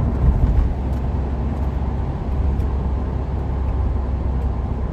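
Cabin sound of a 2015 Subaru WRX cruising steadily on a wet road: a low, even engine and road drone with tyre noise. There is no revving or acceleration.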